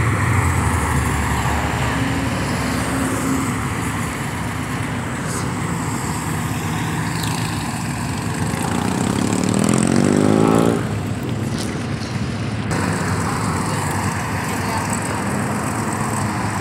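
Cruising hot rods and other cars driving past in traffic, engines running with road noise. About nine seconds in, one engine revs up, its pitch climbing for about two seconds before it falls away.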